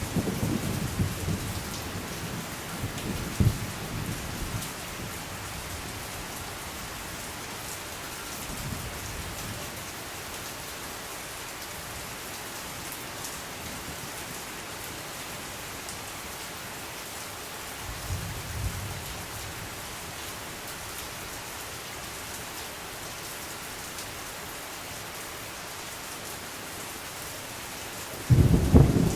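Steady rain falling, with low rolls of thunder: a rumble at the start, a short one about two-thirds of the way through, and a louder one starting just before the end.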